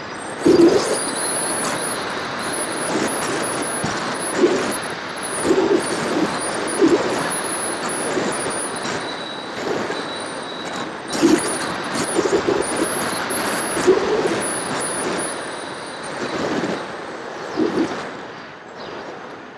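Rushing wind on the onboard camera microphone of a flying FPV aircraft, swelling in gusts every second or so. Through it a high thin whine from the aircraft's electric motor comes and goes.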